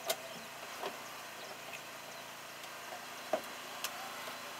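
Hydraulic rescue tool forcing a car door open, with several sharp cracks and snaps as the metal gives way, over a steady engine hum from the hydraulic power unit.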